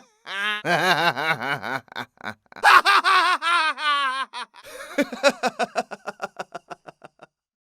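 Laughter sound effect: one person laughing in quick pulsed bursts. It trails off into a run of short, rapid laughs that fade and stop just before the end.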